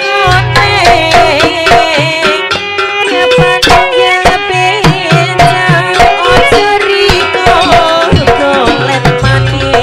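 Traditional gamelan music for a barong dance. Dense, fast hand-drum strokes with deep thuds in between drive it, under a wavering, ornamented melody line.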